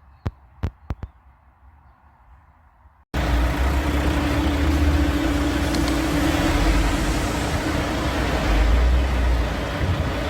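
A few sharp clicks in the quiet, then, after a sudden cut about three seconds in, a large dump truck's diesel engine running steadily with a constant hum over a low rumble.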